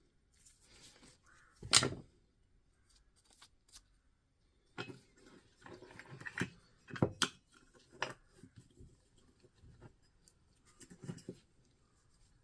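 Scattered clicks and knocks of parts and tools being handled on a bench, the sharpest about two seconds in and a quick run of them about seven seconds in, with soft rustling between.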